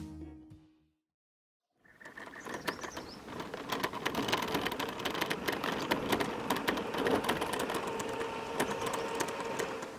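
The tail of a song fades out, and after about a second of silence a steady background of rapid clicking and clatter sets in, with a faint hum underneath.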